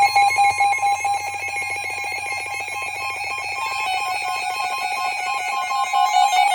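Emergency Alert System attention signal: a loud, steady two-tone alarm, the tone that announces an emergency alert, here a tornado warning.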